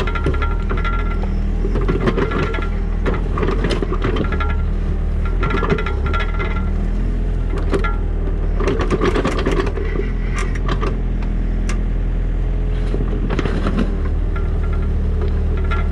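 Diesel engine of a digging machine running steadily, with repeated knocks and clanks of the working equipment.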